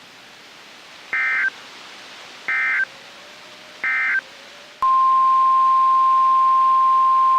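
Emergency Alert System SAME data: three short buzzing bursts about a second and a half apart, the end-of-message code that closes a warning. About five seconds in, a click and then the NOAA Weather Radio 1050 Hz warning alarm tone begin, a loud steady single-pitch tone that signals a new warning.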